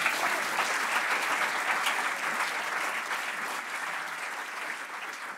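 Audience applauding at the end of a live song, the clapping slowly dying down.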